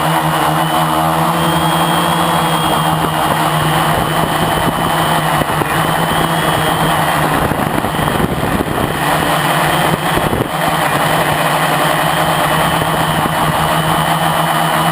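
Lotusrc T380 quadcopter's electric motors and propellers buzzing steadily, heard through the GoPro mounted on the quad, with a high whine on top. About halfway through the sound turns rougher and noisier for a few seconds before settling back to the steady buzz.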